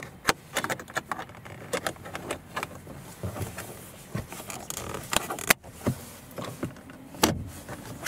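Irregular plastic clicks and taps as the LED door-handle cover is pressed and snapped into the interior door handle recess of the door trim, with two sharper clicks in the second half.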